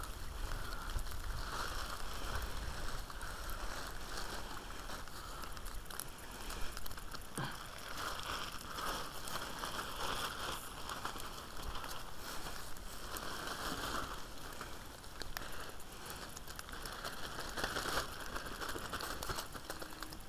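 Plastic carrier bag crinkling and rustling as it is handled and small live-bait fish are shaken into it from a net, with small irregular clicks and crackles.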